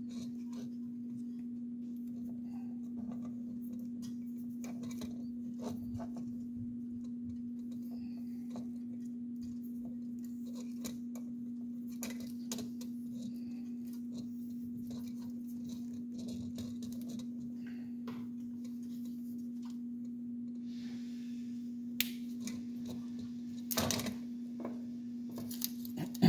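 Faint clicks and rustles of hands handling thin thermistor wires and tape, with a few louder crackles near the end, over a steady low hum.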